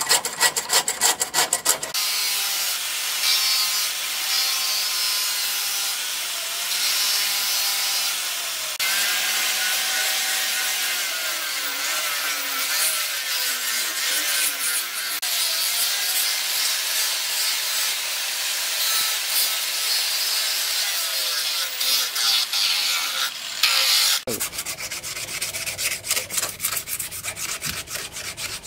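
Quick scraping hand strokes on a wooden knife handle. About two seconds in, an angle grinder with a sanding pad takes over, sanding the wooden handle with a steady loud hiss and a faint motor hum for about twenty seconds. It stops near the end, giving way to rhythmic back-and-forth rubbing of sandpaper by hand along the handle.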